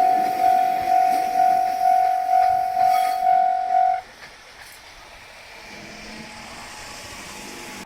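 Japanese level-crossing warning bell ringing in steady repeated strokes, a little over two a second. It cuts off about four seconds in, the signal that the crossing is clearing, and only quieter background sound is left.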